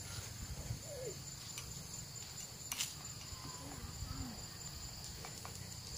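Steady high-pitched chirring of crickets or other insects, with a low rumble of wind and handling underneath and a sharp click about halfway through.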